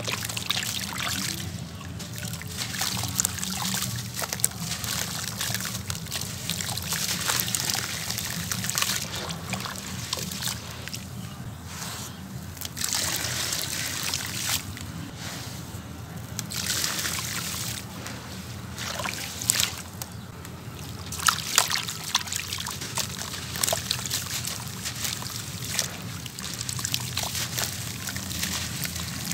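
A soft sand-cement block crumbled by hand into a basin of water: gritty crunching and crackling as it breaks, with crumbled cement dropping into the water and wet sloshing and trickling as the hands work it. A few sharper, louder crunches come about two-thirds of the way through.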